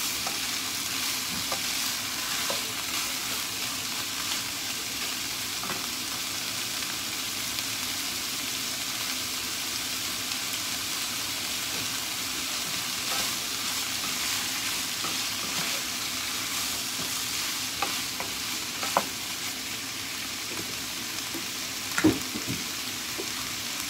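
Sliced fuki (butterbur stalks) sizzling steadily in a frying pan, a wooden spatula stirring and scraping through them at first. Two sharp knocks come near the end, a few seconds apart, the second the loudest sound.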